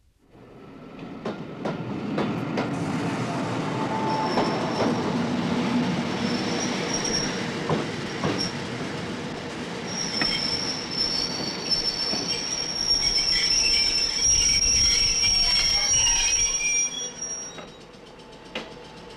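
Train running into a station with a rumble that fades in over the first couple of seconds, high-pitched wheel squeals that come and go and are strongest in the second half, and a few clanks. The squealing dies away near the end, leaving a quieter rumble.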